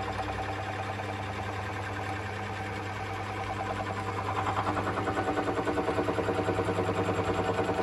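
Myford lathe running, turning a between-centres boring bar through a cast cylinder block on the first cut, where the tool is just touching in a few places. A steady hum with a rapid, regular pulsing that grows louder about halfway through.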